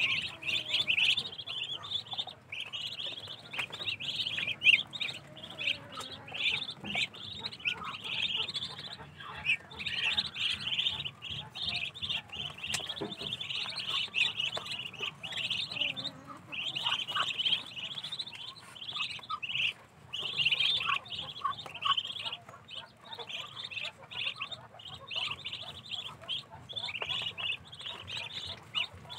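A brood of Muscovy ducklings peeping without pause, many short, high-pitched calls overlapping.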